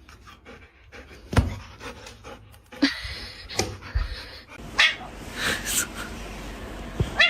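A dog panting in short breathy bursts, among scattered knocks and taps.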